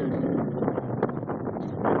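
Off-road race vehicle's engine running, mixed with wind buffeting the microphone and scattered short crackles.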